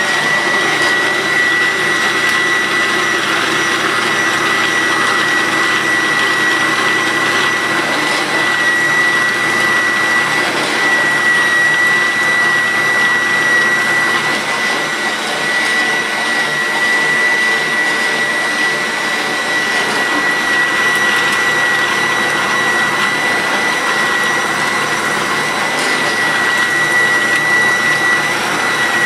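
Bosch food processor motor driving its citrus-press attachment while a lemon half is pressed onto the spinning reamer cone. It makes a steady, loud whirr with a constant high-pitched whine.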